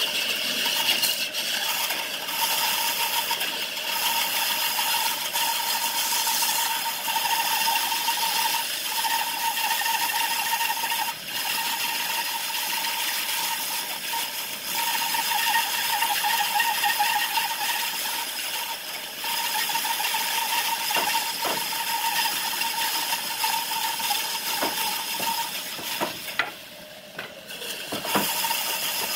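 Bandsaw running and ripping through a round log section, a steady whine over the hiss of the blade in the wood. The sound drops away briefly near the end, then picks up again.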